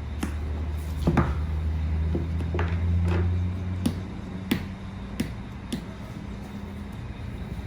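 Scattered sharp clicks and taps, about six of them, as the drone and its packaging are handled. Under them runs a low steady rumble that fades about four seconds in.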